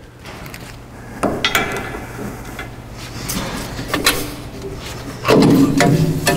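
Metal clinks and knocks of a hand wrench on a car's front suspension hardware as it is taken apart, a few separate hits with the loudest cluster about five seconds in, over a steady low hum.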